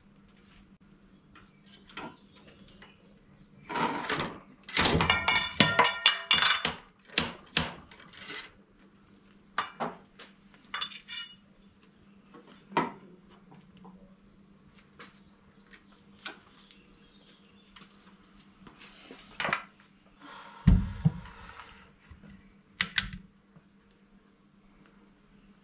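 Metal clinking and rattling of muzzleloader loading gear, a rod and tools handled at the bench, with a dense run of ringing clinks about five seconds in and scattered clicks after. A single heavy thump comes about 21 seconds in.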